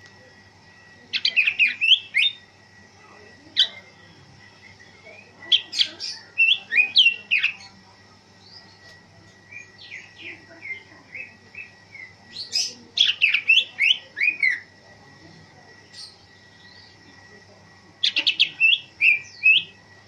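Cucak ijo (green leafbird) singing in loud bursts of rapid, varied chirps and whistled notes. There are about six phrases, each one to two seconds long, with short pauses between them.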